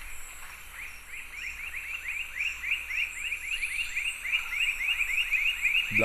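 Black-breasted puffbird singing: a long, even series of whistled notes, about four a second, each note curving up and then down, the series growing steadily louder.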